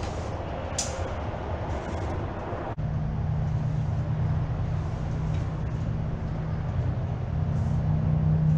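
Diesel farm tractor engine running steadily, heard as a low, even hum. The sound breaks off for an instant about three seconds in and comes back as a smoother, steadier hum.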